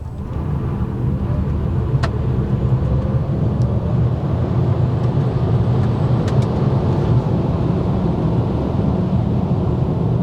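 Mercedes EQA 350 4Matic electric SUV accelerating hard from a standstill, heard from inside the cabin. The road and tyre rumble builds over the first second or two and then holds steady, with a few light clicks.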